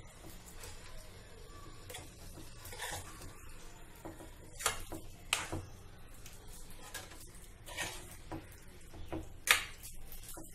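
A spoon stirring chickpeas and potatoes through thick masala in a cooking pan, scraping and knocking against the pan at irregular moments, the loudest knock about nine and a half seconds in.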